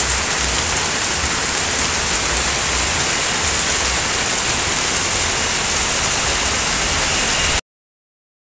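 Very heavy rain pouring onto a flooded street, a steady hiss with a low rumble underneath; it stops abruptly near the end.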